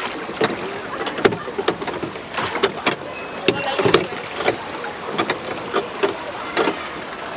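Wooden oars of a plastic rowboat being worked, with frequent irregular sharp knocks and clicks of the oars in their oarlocks and water splashing off the blades.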